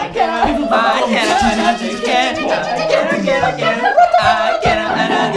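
Voices singing a cappella, with no clear instrument.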